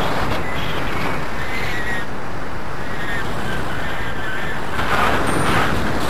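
Wind rushing steadily over a hand-held camera's microphone during a tandem paraglider flight, swelling slightly about five seconds in.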